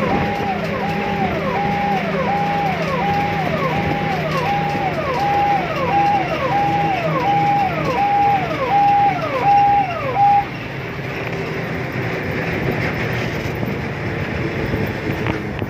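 Electronic emergency siren cycling over and over, each cycle a held high note that drops sharply, about three cycles every two seconds; it stops about ten seconds in. A steady noisy rumble with a low hum runs underneath.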